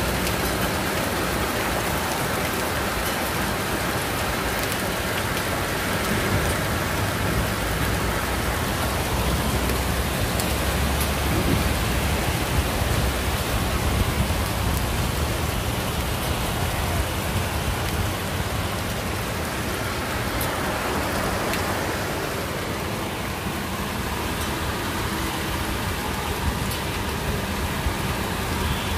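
Heavy rain mixed with hail pelting a street and parked cars: a steady, even hiss, with a low rumble of traffic running through the water underneath.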